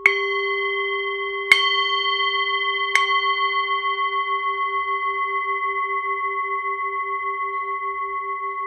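A bell-like chime struck three times, about a second and a half apart, the strikes blending into one long ringing tone that wavers slowly as it dies away.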